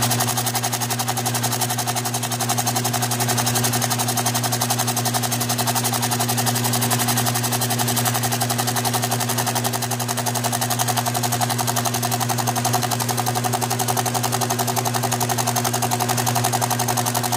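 Bridgeport milling machine's end mill cutting the gasket deck of a Stihl MS200T magnesium crankcase. The motor hum is steady under a fast, even rattle from the cutter taking a light skim cut to lower the deck and tighten the squish.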